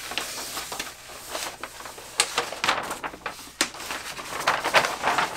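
Large rolled sheets of paper plans rustling and crackling as they are unrolled and spread open, with irregular sharp crackles that come thicker near the end.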